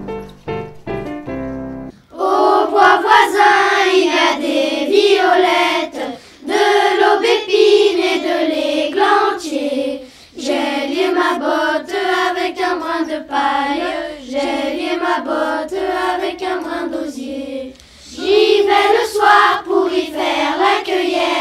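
A children's choir singing a song together in phrases, with short breaks between them. The first two seconds are instrumental music before the singing starts.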